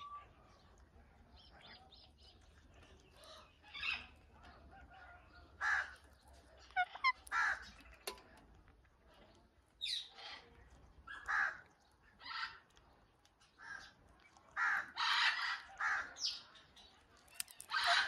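Indian ringneck parakeets calling: about a dozen short calls, sparse at first and coming closer together near the end.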